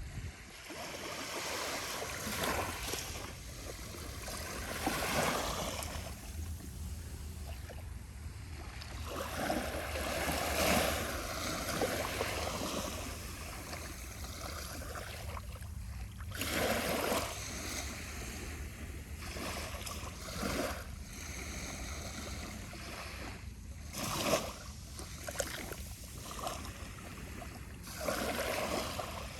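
Small, calm ocean waves lapping and washing onto a sandy beach, a gentle wash swelling and fading every few seconds.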